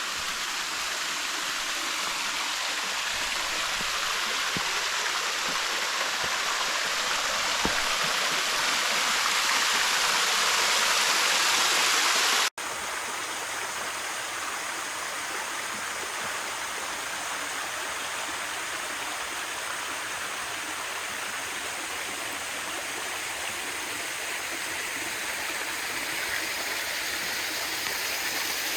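Steady rush of creek water tumbling over rocks, growing louder over the first twelve seconds. It then cuts off abruptly to a slightly quieter, steady rush of flowing water.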